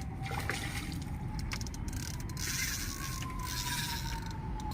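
Fishing reel mechanism clicking and scraping as the line is worked, over rumbling handling noise. A faint tone slowly falls in pitch underneath.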